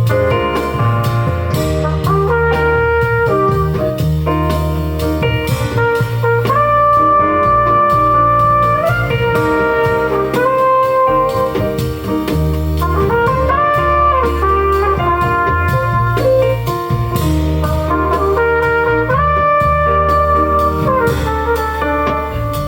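Instrumental music, an instrumental break in a slow love song: a melody of long held notes that step and slide, over a steady bass line.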